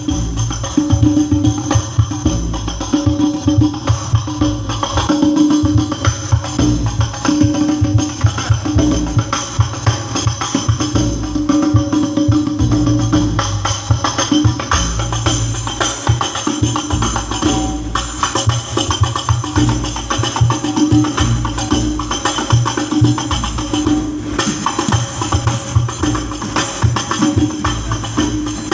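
Percussion-led music through a PA sound system during a sound check: jingling tambourines over a steady, deep drum beat, with a held low note coming and going.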